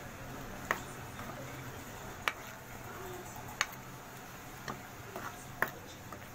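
Spatula knocking and scraping against a pan while stirring a thick, grainy mango and reduced-milk mixture: sharp clicks about every second and a half, over a faint steady hum.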